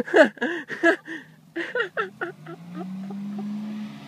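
A person laughing in quick bursts, then the steady hum of a golf cart's motor rising slightly in pitch and holding as the cart moves off.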